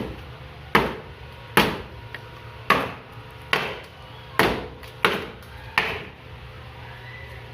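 Eight hard blows striking the wood of a broken cabinet as it is knocked apart, about one a second, stopping about six seconds in.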